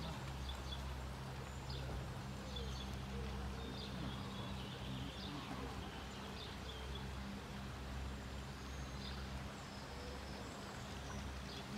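Small birds chirping in short, scattered calls over a steady low rumble of rushing river water.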